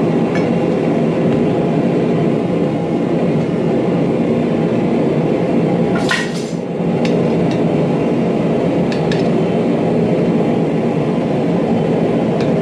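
Steady, loud workshop roar from a running machine or burner, with a sharp click about six seconds in and a few faint clinks later.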